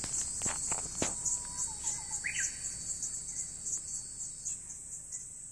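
Outdoor insect chorus: a high, pulsing trill that repeats throughout and slowly fades toward the end. A few sharp clicks sound in the first second, and a short bird call comes about two seconds in.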